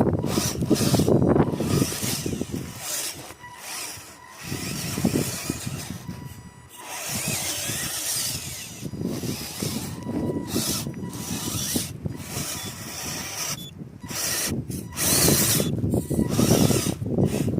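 Radio-controlled off-road car driving in bursts, its motor and gears running with a rough rattling noise, dropping away in short pauses between runs and loudest near the start and the end.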